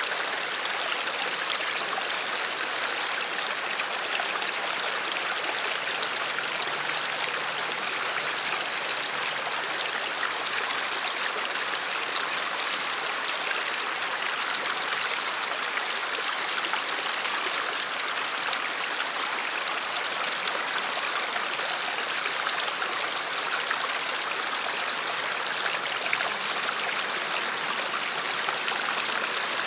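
Shallow creek running over rocks: a steady rushing of water.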